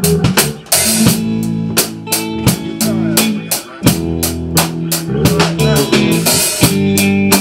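Live band playing: a drum kit keeping a steady beat under electric guitar.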